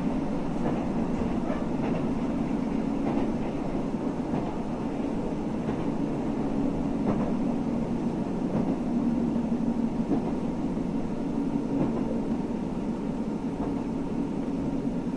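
Passenger train running along the track, heard from inside the carriage: a steady low rumble of the wheels and running gear, with a few faint clicks.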